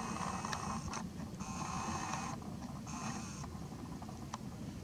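Camera lens motor whirring in three short bursts, about a second each, as the lens adjusts focus on a bird behind branches. A faint click comes near the end.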